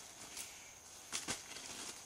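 Two soft taps close together about a second in, over a faint steady high-pitched whine.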